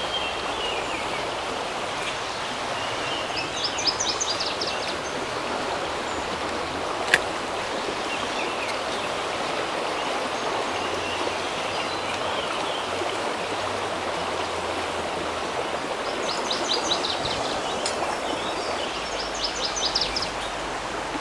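Fast-moving creek water rushing steadily, with a single sharp click about seven seconds in.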